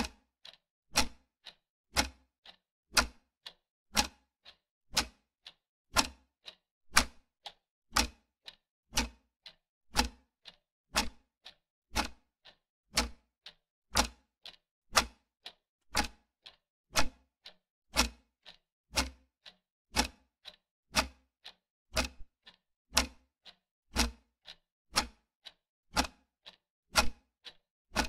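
Ticking-clock sound effect marking a countdown timer: a sharp tick every second with a softer tock halfway between, steady throughout.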